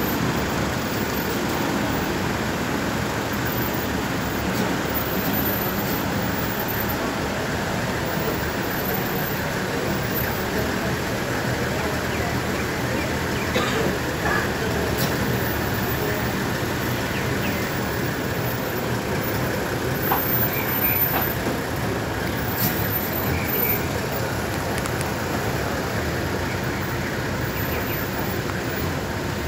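Steady traffic noise of cars and SUVs driving slowly along the street, with some voices of people nearby.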